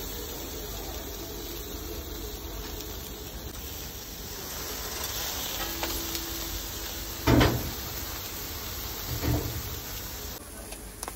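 Swordfish steak sizzling on a hot grill grate while it is basted with a brush, a steady hiss. Two short, loud knocks come about seven and nine seconds in.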